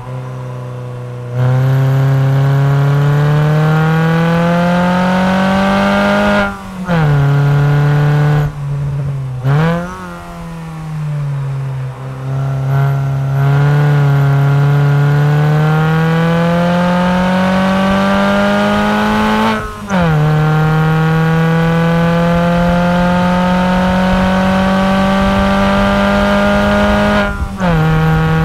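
Alfa Romeo 147's 1.6 Twin Spark four-cylinder engine through a FORCE-G aftermarket exhaust, driven hard on track. The exhaust note climbs in long pulls and drops sharply in pitch at two upshifts. Twice it goes briefly quieter off the throttle, once with a quick rise and fall in revs.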